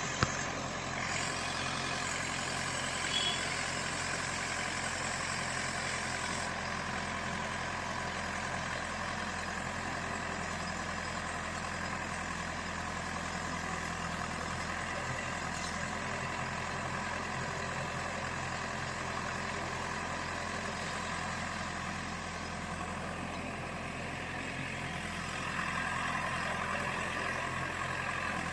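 JCB backhoe loader's diesel engine running steadily while it works, with a slight rise in level about 25 seconds in.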